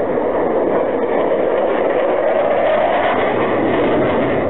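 Jet fighter's engine roar during a low flypast, a loud steady rumble that holds level throughout.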